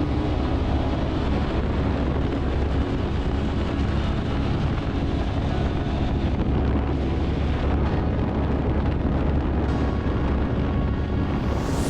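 Wind rushing over the microphone of a KTM 1290 Super Adventure S motorcycle riding at speed, with a steady low drone underneath.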